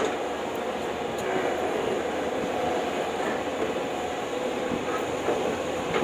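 Hyundai 215LC crawler excavator's diesel engine and hydraulics running steadily as it digs into soil.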